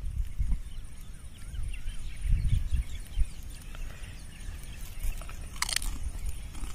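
Open-air field ambience: a low wind rumble on the microphone that swells in gusts, with faint bird chirps and one short sharp sound near the end.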